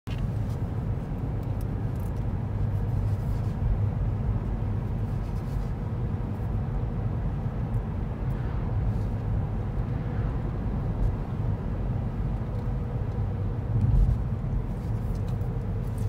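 Steady low rumble of a car driving, tyre and engine noise heard from inside the cabin, with a brief louder swell near the end.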